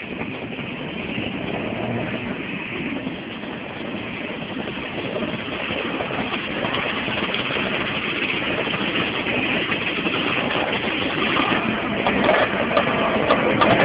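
Classic Vespa scooters' two-stroke engines running as the scooters ride up close, getting louder near the end.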